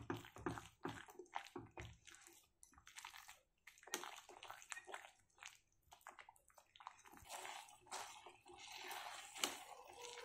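Silicone spatula stirring thick, sticky banana halwa in a kadai: faint, irregular squelching and scraping strokes as the mass is folded and pressed against the pan while it cooks down.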